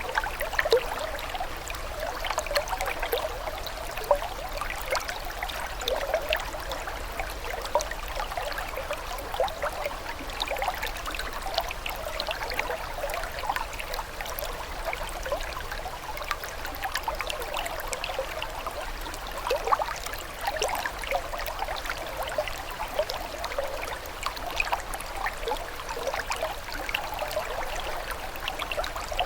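Water flowing and trickling steadily, a continuous babble of small splashes and gurgles like a shallow stream.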